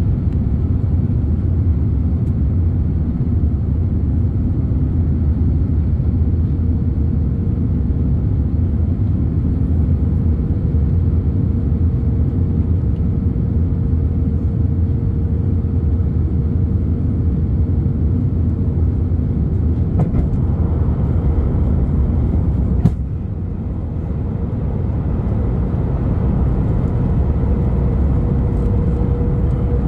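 Airbus A330neo's Rolls-Royce Trent 7000 engines and airflow as a steady low rumble with a faint steady hum. A sharp click about 23 seconds in, after which the rumble dips a little and builds back.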